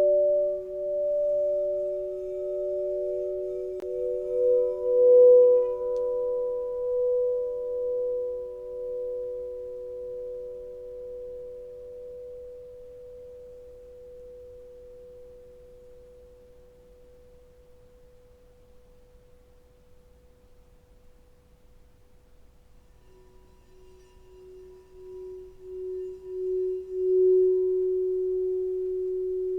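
Singing bowls ringing as long sustained tones. A bowl is sounded about four seconds in and rings with a slow wavering beat, fading away over some fifteen seconds. Near the end a lower bowl swells up again with a pulsing waver and then holds steady.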